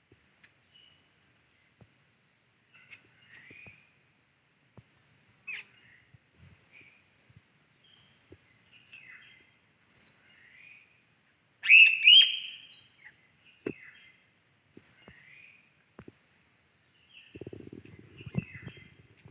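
Small birds calling in short chirps and whistles, scattered and irregular, the loudest a quick pair a little past the middle, over a faint steady high tone. A low scuffing noise starts near the end.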